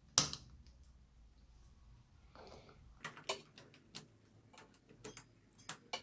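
Small plastic clicks and taps as a cable plug and the port cover on the side of a Canon DSLR are handled: one sharp click just after the start, then a scatter of lighter clicks in the second half.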